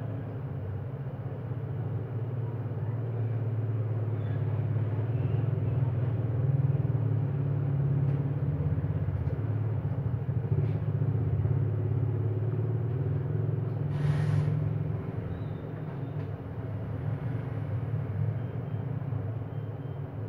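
An engine runs steadily with a low droning hum that swells and eases a little, and a short hiss comes about fourteen seconds in.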